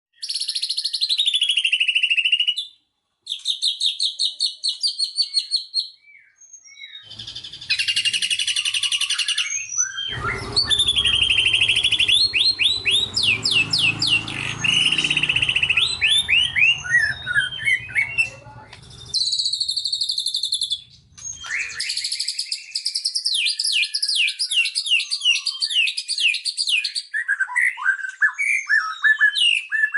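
White-rumped shama (murai batu) singing loud 'tembakan' phrases: fast runs of repeated high sweeping whistles and trills, broken by short pauses. A low rumble sits under the song for several seconds in the middle.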